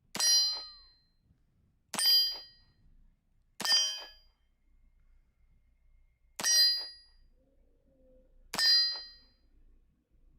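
Five pistol shots from the restored 1914 Colt M1911, each ringing a steel target with a metallic clang that dies away. They come at uneven intervals, about two seconds apart.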